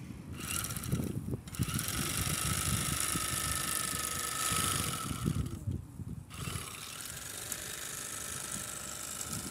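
Portable electric bag-closer sewing machine running as it stitches a sack shut, in three spells with short stops about a second in and around six seconds. Rustling and knocking of the sack underneath.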